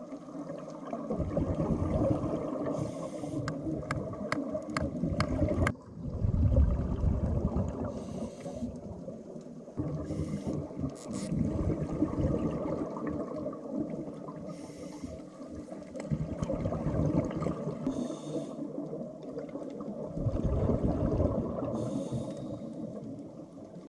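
Underwater sound from a scuba dive: a steady bubbling rumble with short bursts of hiss every few seconds, as from a diver's regulator, and a quick run of clicks a few seconds in.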